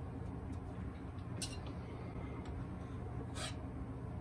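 Quiet room with a steady low hum and two brief, soft handling noises, about a second and a half in and again near the end, as glazing tools are picked up and handled at a worktable.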